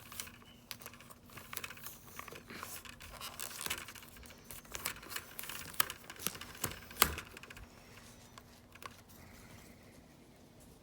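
Hands working on a plastic pull-string talking doll: a busy run of quick clicks, scratches and rustles, with a few sharper clicks, dying down about eight seconds in.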